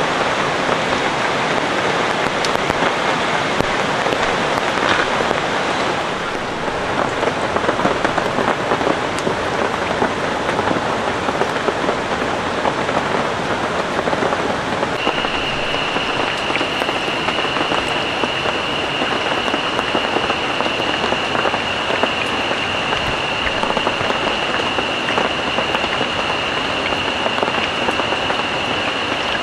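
Rain falling steadily. About halfway through, a steady high-pitched tone joins it and holds.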